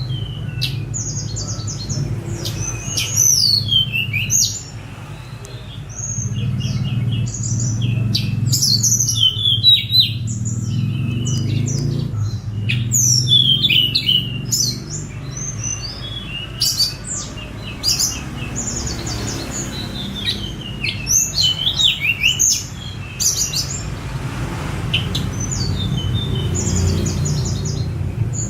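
Tledekan gunung songbird singing: rapid runs of high, quick chirps and trills, some sliding up and down in pitch, with short pauses between phrases. A steady low hum runs underneath.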